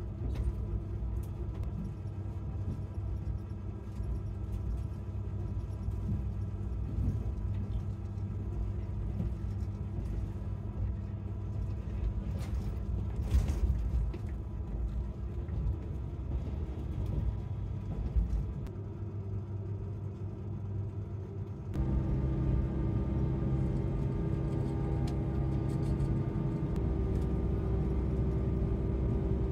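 Steady low rumble of a diesel train running, heard inside the passenger carriage, with a few light clicks and knocks near the middle. About 22 seconds in it gets louder, with a steady multi-tone drone.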